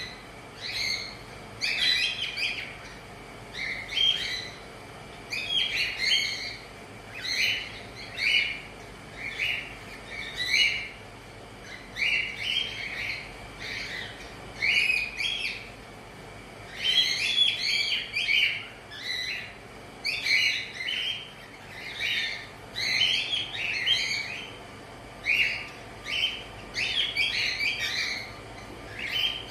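Cockatiels chirping: short, high chirps in quick little groups, repeating about once a second.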